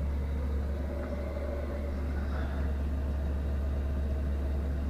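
Motorhome diesel air heater running with a steady low hum, just after being turned down to a three-bar setting, before its fan slows.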